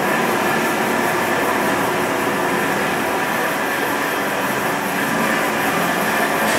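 Machinery running steadily: a constant hum carrying several steady tones, with a hiss above it.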